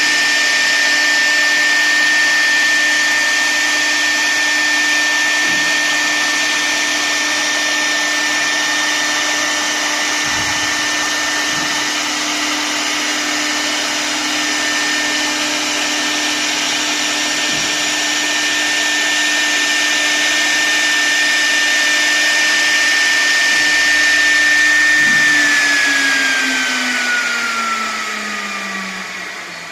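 CNC router spindle motor running at a steady high whine over a broad hiss. Near the end its pitch falls steadily and the sound fades as the spindle spins down.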